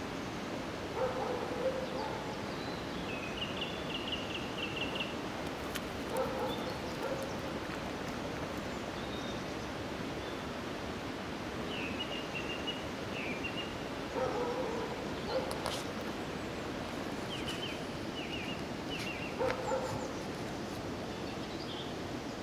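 Dogs giving short barks, about six in all and mostly in quick pairs, over a steady outdoor hiss.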